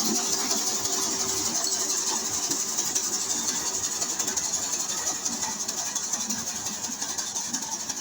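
An engine running steadily under a constant high hiss, with no clear change in speed.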